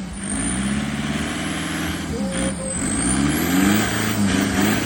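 Off-road 4x4 race vehicle's engine revving up and down again and again over rough, noisy running, its pitch rising and falling every second or so.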